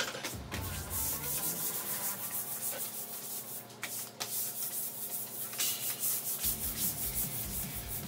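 Stiff-bristled broom scrubbing a wet concrete kennel floor in repeated strokes.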